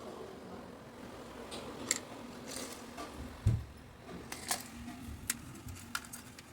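Scattered light clicks and taps of small hard objects being handled, with a dull thump about three and a half seconds in.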